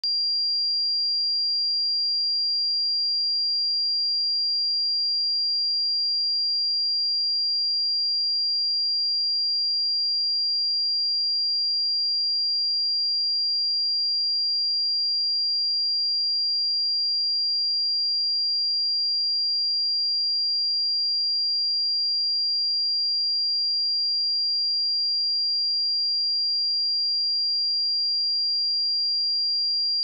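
A steady, unbroken 4766 Hz pure sine-wave test tone: one constant high-pitched whistle-like tone, used for testing speakers and headphones.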